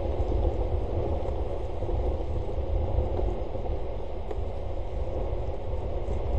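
Steady low rumble and hiss of rain and wind on an outdoor webcam's microphone, with no distinct events.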